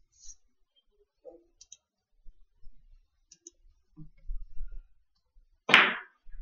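A cue tip strikes the cue ball on a carom billiards table once near the end: a single sharp click with a short noisy tail. A few faint ticks come before it.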